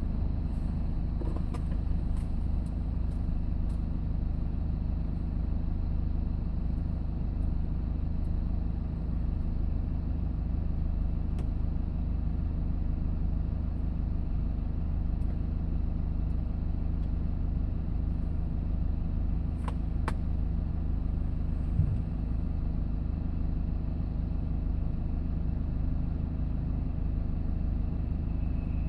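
Steady low rumble of a vehicle driving, engine and road noise heard from inside the cab, with a few faint clicks and one short thump about three-quarters of the way through.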